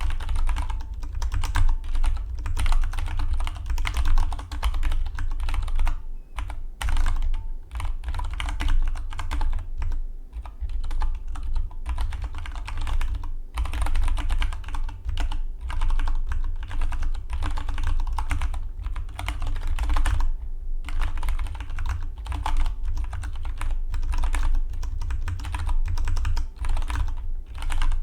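Fast continuous typing on a Dygma Defy split mechanical keyboard: rapid clacking keystrokes in long runs, broken by a few short pauses.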